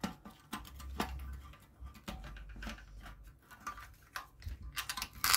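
Screwdriver working the centre screw out of a bakhoor burner's metal top plate, then the loosened plate being handled: a string of small clicks and metal scrapes, with a quick run of louder clicks near the end.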